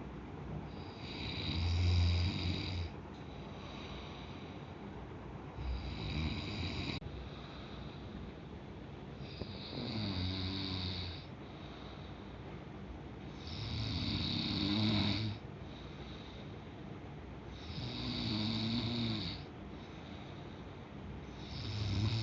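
A sleeping person snoring in a steady rhythm: about six snores, each lasting a second or two and coming roughly every four seconds.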